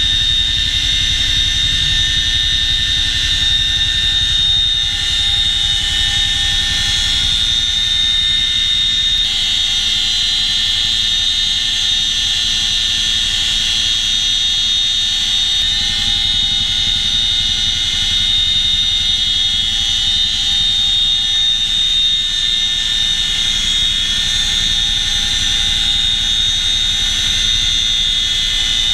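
Cabin noise of a CH-47 Chinook helicopter in flight: a steady, loud, high-pitched whine from its rotor transmissions over a low rumble.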